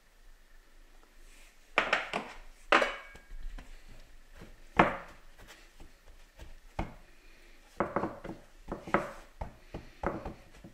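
Raw beef fillet being turned and patted on a bamboo cutting board as paprika is rubbed in: about a dozen irregular knocks and thuds of meat and hands against the wood.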